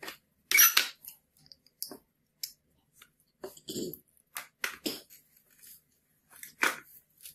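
Plastic toy tractor parts and a hot glue gun being handled and set down on a wooden workbench: a series of sharp clacks and knocks at irregular intervals, the loudest about half a second in.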